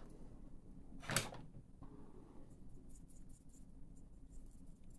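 A single sharp knock about a second in, then faint, short scratches of a paintbrush working the paint in a small watercolour half pan.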